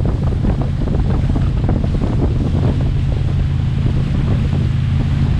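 Heavy wind noise on the microphone over the steady drone of a motorboat engine and rushing water.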